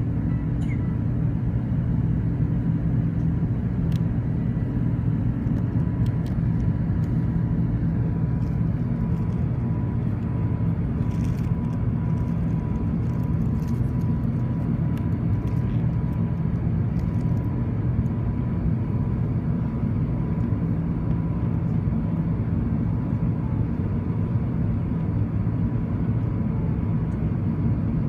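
Airbus A380's Rolls-Royce Trent 900 jet engines heard from inside the passenger cabin: a steady low drone with a faint high steady tone over it.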